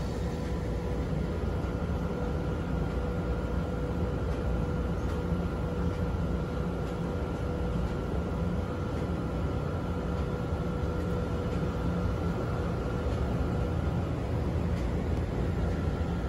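Steady low rumble of background noise with a faint constant hum through it, unchanging throughout, with no distinct events.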